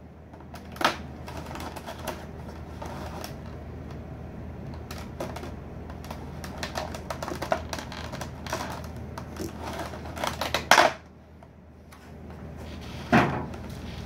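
Scissors cutting packing tape and a clear plastic package being handled: irregular clicks and crackles, with a louder burst about eleven seconds in and a sharp knock near the end.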